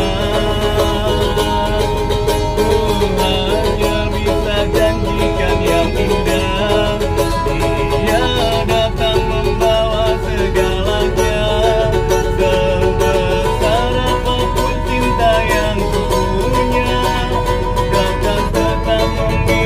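A man singing while strumming a small bowl-backed, mandolin-like lute, a steady run of plucked chords under his voice.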